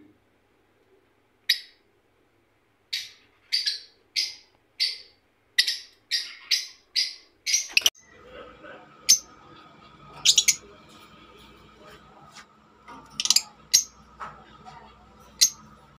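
Lovebirds giving short, sharp chirping calls: a quick run of about a dozen in the first half, then scattered single calls over a steady background hum.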